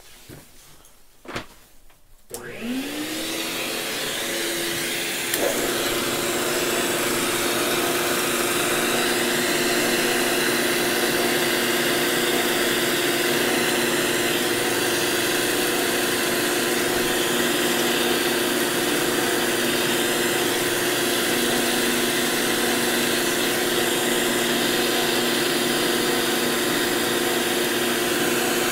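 A couple of clicks, then a shop vacuum is switched on: its motor whine rises in pitch and settles into a steady high hum. About five seconds in, a second motor starts and adds a lower hum, and both run on steadily.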